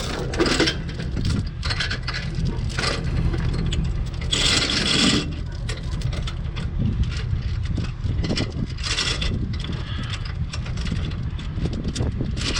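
Hands working at trailer tail-light wiring and connectors: irregular scraping, rubbing and clicking, with a louder rasping scrape about four seconds in, over a steady low rumble.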